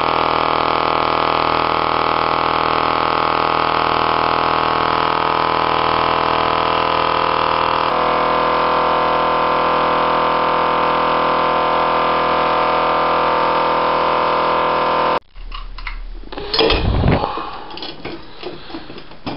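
Air compressor running steadily as paint is sprayed through an air-fed spray gun. It cuts off suddenly about 15 seconds in, giving way to quieter knocks and clatter as the spray gun and its paint cup are handled, with one louder thump near the end.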